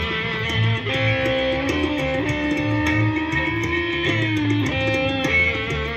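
Live band playing amplified music: guitar over a pulsing bass line, with a steady beat and a long held guitar note through the middle.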